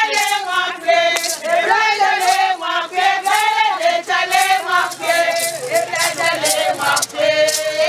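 A group of women singing a praise song together, with gourd rattles shaken in a steady beat of about two strokes a second.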